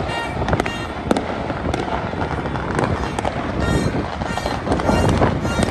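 Many fireworks going off across the city at once: a dense, irregular run of sharp bangs, several a second, over a continuous rumble of distant explosions.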